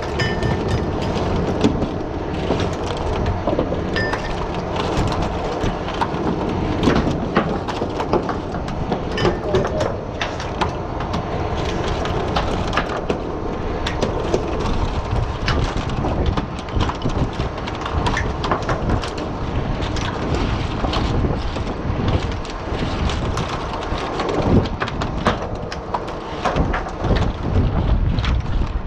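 Oyster shells clinking and knocking as dredged oysters are culled by hand on a wooden culling board, over the steady rumble of the boat's engine and wind on the microphone.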